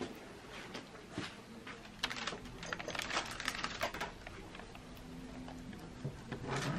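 Soft, irregular clicks and crackles, densest in the middle, as a plastic bucket of thick soap batter is tipped and poured into parchment-lined wooden loaf molds, with a faint steady hum underneath.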